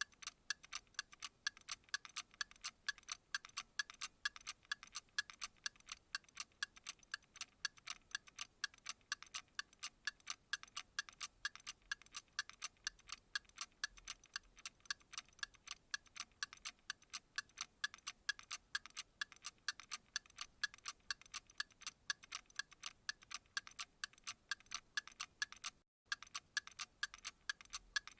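Steady, even clock-style ticking, a fast run of sharp ticks, broken by a momentary drop-out near the end.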